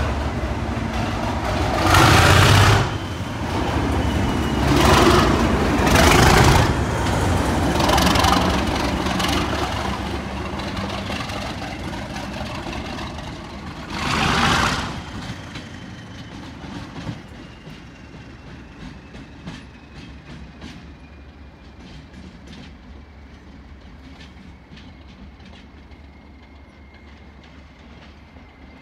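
Class 37 diesel locomotive's English Electric V12 engine growling as it pulls away under power, swelling loudly several times over the first fifteen seconds, with a thin turbocharger whistle falling slowly in pitch. The sound then fades as the locomotive runs off into the distance, with a string of sharp wheel clicks over the rail joints and pointwork.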